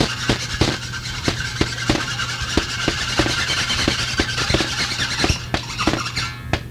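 Noisy, distorted stretch of a lo-fi home-made band recording: squealing noise over a steady hum, with irregular sharp knocks about three a second, changing character near the end.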